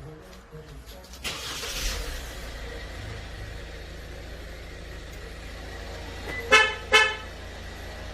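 Two short chirps of a Kia Sportage QL's horn about half a second apart, sounded by an aftermarket remote-start alarm as its confirmation signal. Earlier there is a brief rush of noise about a second in, followed by a steady low hum.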